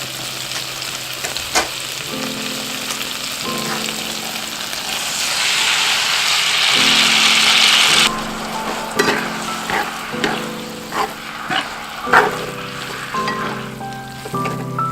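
Food sizzling as it is stir-fried in a hot pan, with the clicks and knocks of a utensil against the pan. The sizzle is loudest in the middle and cuts off suddenly about eight seconds in, after which the utensil knocks stand out.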